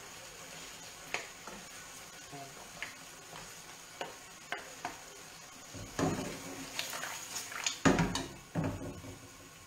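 Pasta being stirred in a frying pan as it finishes cooking in its sauce, with a gentle sizzle underneath. The utensil clicks against the pan a few times, then scrapes and clatters louder about six and eight seconds in.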